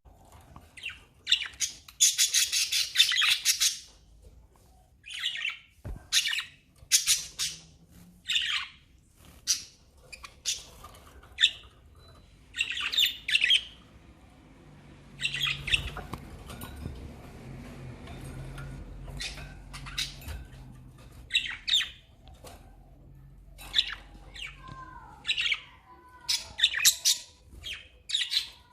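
Budgerigars (pet budgies) chirping and squawking in short, high-pitched bursts of chatter every second or so, with a longer run of chatter about two seconds in and a lull about halfway through.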